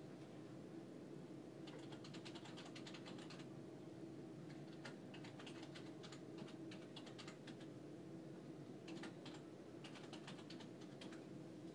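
Faint quick light clicks in irregular runs of one to three seconds, over a steady low hum.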